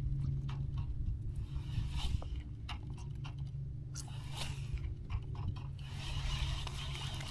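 Baitcasting fishing reel being cranked on a retrieve: the gears turning with small clicks and scrapes, over a steady low hum.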